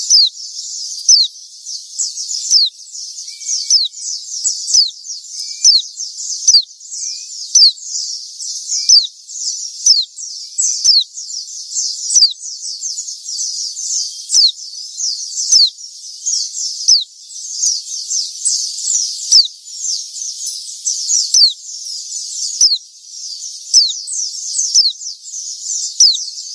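White-eyes (pleci) twittering: a continuous stream of high, quick down-slurred chirps, with louder notes roughly once a second.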